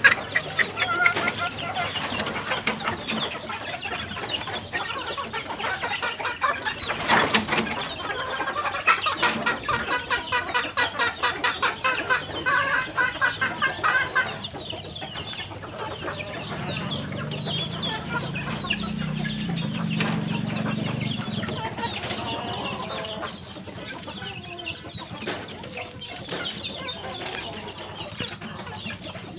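A flock of chickens, hens and young gamefowl, clucking and calling. Quick runs of clucks come about three a second in the first half.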